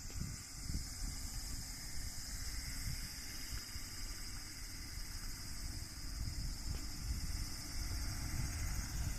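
Outdoor ambience at a rural railway crossing with no train: a steady high-pitched insect drone over an uneven low rumble that comes and goes, like wind buffeting the microphone.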